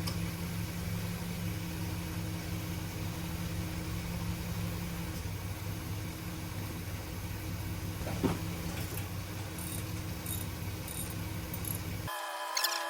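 Steady low mechanical hum, like a motor running, with a single sharp click about eight seconds in. Shortly before the end it cuts off abruptly and gives way to a different sound of steady higher tones.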